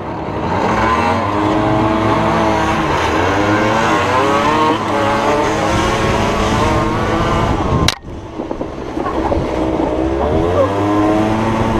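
50cc two-stroke dirt bike engines revving on the move, the pitch climbing and dropping back again and again. A sharp click and a brief dip about eight seconds in, then the engine picks up again.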